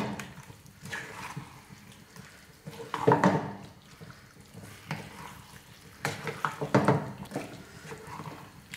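A spoon stirring chicken pieces through a thick ground masala paste in a pan, scraping the pan and squelching in irregular strokes, busiest about three seconds in and again around six to seven seconds in.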